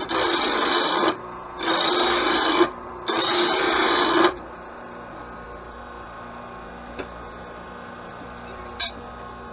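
Mower blade being sharpened: three sharpening strokes of about a second each with short pauses between, then a faint steady hum.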